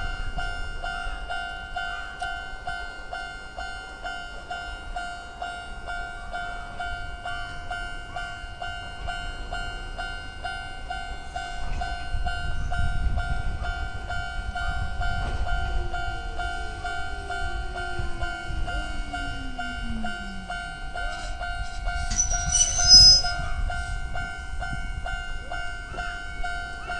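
Level-crossing warning alarm sounding continuously in the old standard electronic tone, a steady ringing. A train rumbles through the crossing in the middle, with a whine falling in pitch under it. A brief shrill sound a few seconds before the end is the loudest moment.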